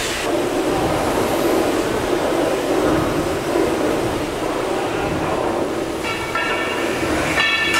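Gimson steam beam pumping engines running steadily: a dense, continuous mechanical rumble of steam and moving machinery. A thin high whistling tone joins near the end.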